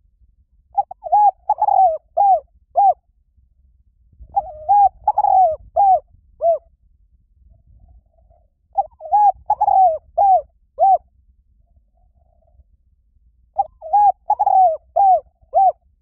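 Spotted dove cooing: four repeated call phrases, each a quick run of about five short coos, coming roughly every four and a half seconds.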